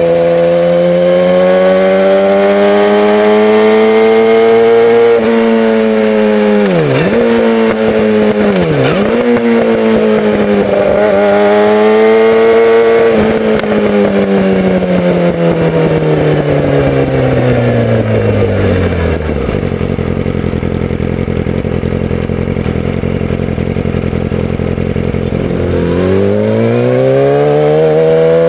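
2018 Yamaha YZF-R6's inline-four engine through a Yoshimura full exhaust system, under way: revs climb, then dip sharply twice as gears change, fall away steadily on engine braking to a low, steady idle, and rise again near the end as the bike pulls away.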